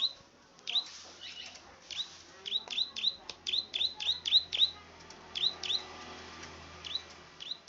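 A small rice-field songbird of the kind sold as 'klik-klik' calling in full voice: short, sharp downward-sliding chirps repeated several times a second, often in quick pairs, coming more sparsely near the end.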